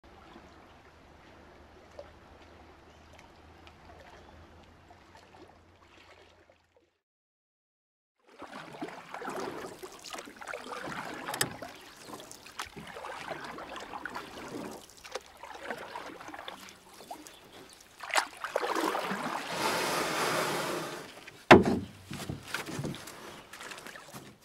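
Lake water sloshing and lapping against a canoe. A faint hiss comes first, then a short silence, then the water sound, with a louder rush of water late on and a sharp knock near the end.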